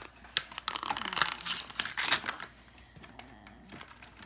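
Toy packaging crinkling and crackling as a cardboard insert is worked loose from a plastic toy, busiest in the first half and quieter after about two and a half seconds.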